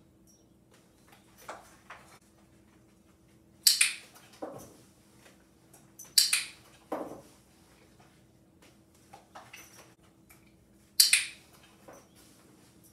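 A dog-training clicker clicking three times, sharp and spaced a few seconds apart, between softer knocks and scuffs of a puppy moving around a low box.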